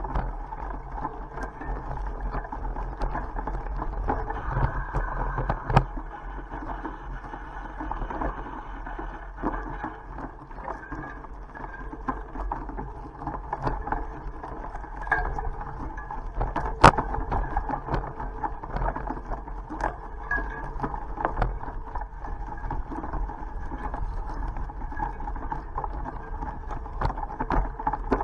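Steady rushing and rumbling of a bicycle rolling along a road, with scattered sharp clicks and knocks, the loudest about six and seventeen seconds in.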